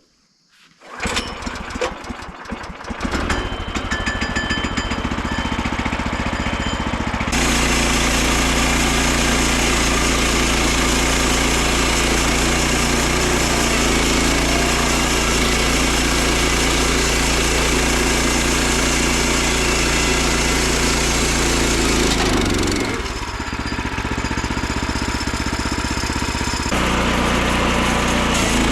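Small gasoline engine of a Woodland Mills HM122 bandsaw mill starting about a second in and running, stepping up to a higher, louder speed after several seconds. Its speed drops for a few seconds near the end, then comes back up.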